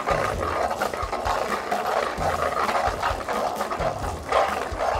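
Dried red chili peppers being ground by hand against the ridged inner wall of an earthenware grinding bowl: a continuous rough scraping and rasping in repeated strokes.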